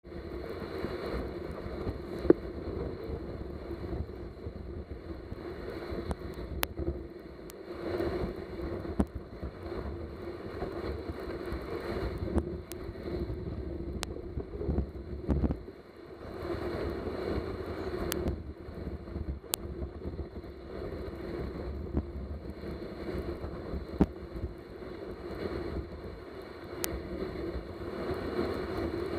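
Steady scraping hiss of being towed over snow behind a pair of running dogs, with wind buffeting the microphone. A few sharp clicks are scattered irregularly through it.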